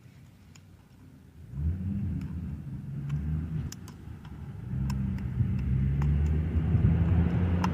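Faint, sharp clicks of a metal pick working the pins of a lock. From about a second and a half in, a motor vehicle's engine rumbles in, growing louder and drowning the clicks.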